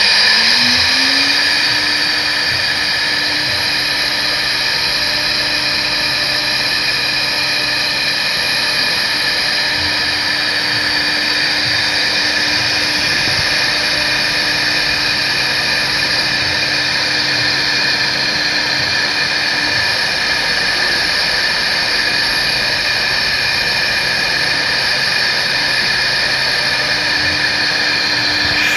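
CNC router spindle spinning up with a rising whine over the first second or two, then running at a steady high-speed whine with a loud, even cutting hiss.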